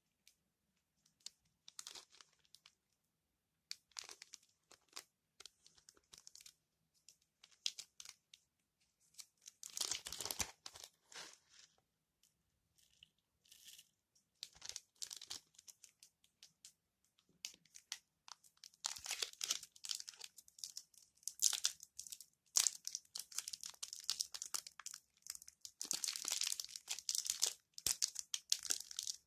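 Crinkly material handled by hand, crackling and tearing in irregular bursts with short silences between them, the bursts coming thicker and louder in the second half.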